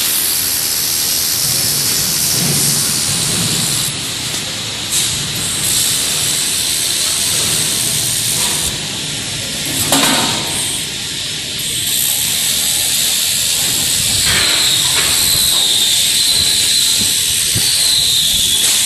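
Handheld laser welder welding sheet steel: a steady hiss of gas and weld, broken by short pauses and a brief sharp sound about ten seconds in, with a faint high whine joining over the second half.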